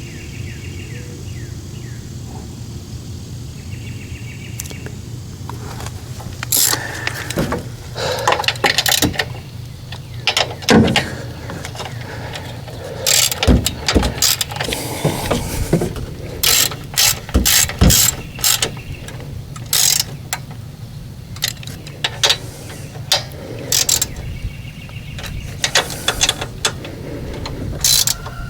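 Hand ratchet clicking in short, irregular runs as fasteners are tightened, starting several seconds in, over a steady low hum.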